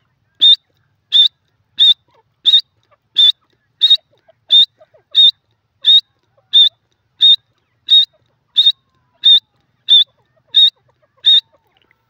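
Grey francolin calling: a long run of sharp, high, identical notes repeated evenly about one and a half times a second, seventeen in all.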